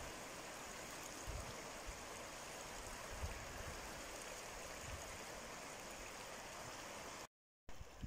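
Shallow mountain river flowing over stones, a steady soft rushing of water. It cuts out for a moment near the end.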